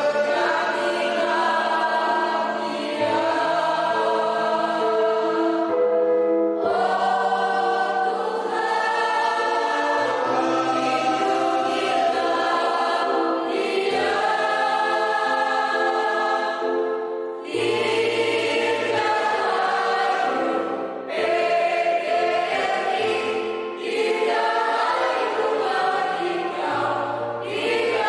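Mixed choir of men and women singing in parts, in sustained phrases with short pauses for breath between them.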